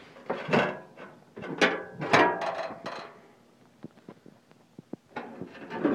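Metal clanks and scrapes as the sheet-steel deck lid of a VW Beetle is handled and lifted off, the loudest in the first three seconds and more near the end.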